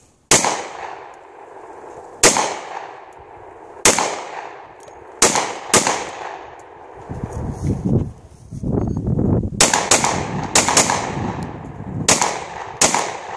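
Glock 29 10mm Auto pistol firing about eleven shots, each a sharp crack with a fading echo: five at an uneven pace, a pause of a few seconds, then six more in quicker succession.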